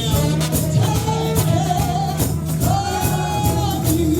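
Gospel music: voices singing long held, wavering lines over a band with steady bass and percussion keeping an even beat.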